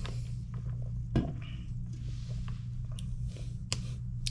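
An aluminium drink can is handled and set down on a table, with a sharp knock about a second in and a few lighter clicks later. A steady low hum runs underneath.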